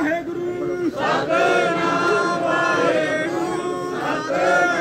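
A crowd of voices chanting together in drawn-out, sung phrases.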